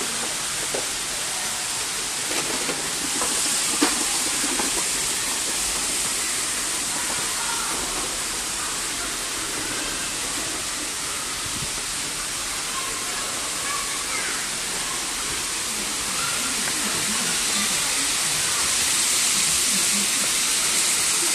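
A steady rushing hiss, with the faint murmur of crowd voices under it.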